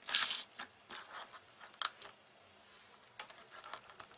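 Small steel watchmaker's tools and a steel mesh watch bracelet being handled: light metallic clicks, taps and scrapes, with a sharp click a little under two seconds in. Near the end, a quick run of small clicks as a pointed tool works at the bracelet's end link beside the case.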